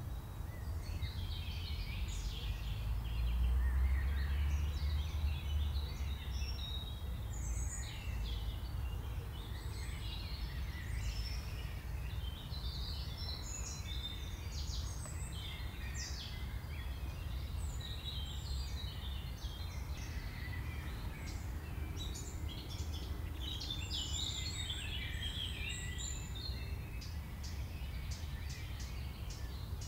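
Woodland birdsong: several small birds singing and chirping at once, many short trills and chirps overlapping throughout. Underneath runs a low steady rumble that swells for a few seconds near the start.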